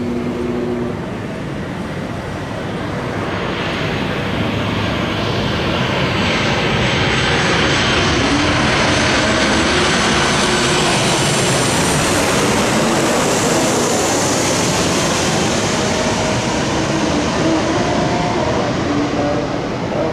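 Airplane engines with a broad rushing noise that builds over several seconds, is loudest around the middle, then holds steady.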